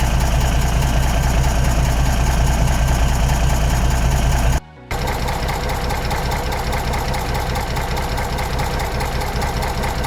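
Shantui SD23 bulldozer's diesel engine running steadily, with a short break about four and a half seconds in.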